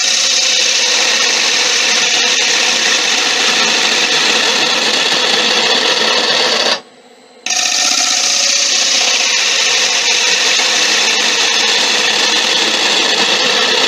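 Turning gouge cutting into monkey puzzle wood spinning on a wood lathe: a loud, steady hiss of the cut, which stops for under a second about seven seconds in and then resumes.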